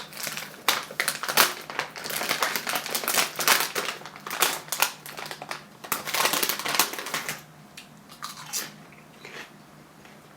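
A potato chip bag being handled and rummaged through, crinkling and crackling irregularly; the crinkling dies down about three-quarters of the way through, leaving a few faint rustles.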